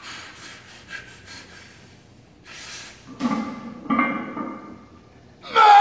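A powerlifter's heavy breathing and strained grunts while pulling a 600 lb trap-bar deadlift: soft breaths at first, then two short strained groans about three and four seconds in. A loud shout starts right at the end.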